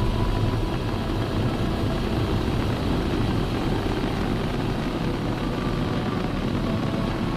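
A steady low rumble of dense noise, like heavy engines or aircraft, holding at an even level.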